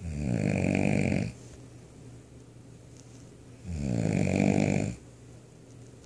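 A person snoring loudly, like a chainsaw: two long snores, each about a second and a quarter, the first at the start and the second about three and a half seconds later.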